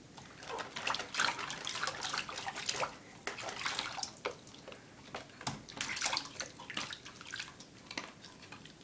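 Water splashing and sloshing in a stainless steel dog water bowl as a baby's hands slap and paddle in it, in irregular bursts with sharp clicks.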